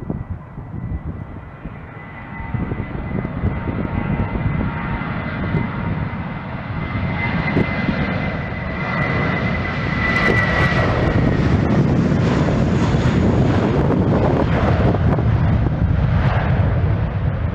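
Jet airliner engines growing louder as the plane passes close by, with a thin, steady high whine that fades a little past ten seconds in. Wind buffets the microphone underneath.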